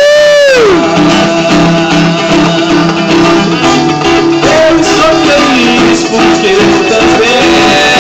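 Street buskers' music: guitar playing with a melody line, sung or slid, that swoops up and back down at the start.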